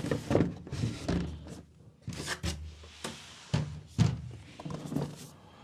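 Cardboard packaging box being handled: a string of thunks, scrapes and rustles as it is lifted, turned and knocked against the table.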